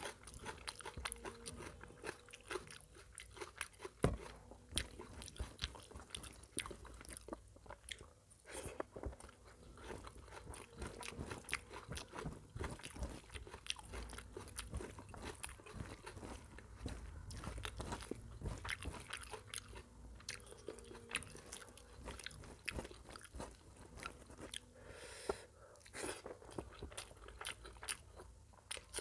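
Close-miked chewing and biting of mutton curry and rice eaten by hand, a steady run of wet mouth clicks and crunches, with fingers squishing rice into curry on a steel plate.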